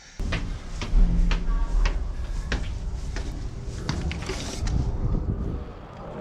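Irregular knocks and clicks over a low steady rumble, from footsteps and the handling of a handheld camera while walking.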